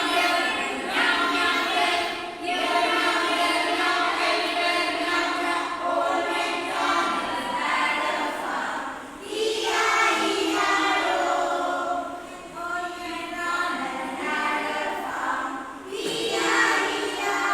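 A choir of children's voices singing together, holding long notes in phrases with short breaks between them.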